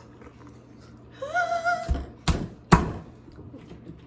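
A brief rising pitched squeal about a second in, followed by three sharp knocks or thuds about half a second apart.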